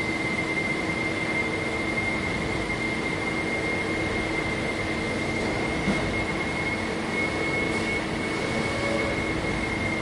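Factory ambience: a steady wash of machinery noise with a constant high-pitched whine and a lower steady hum.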